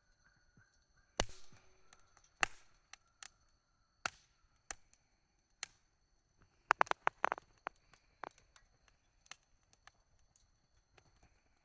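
Campfire wood crackling and popping: sharp, irregular pops, with a loud one about a second in, another a second later, and a quick cluster of pops a little past halfway.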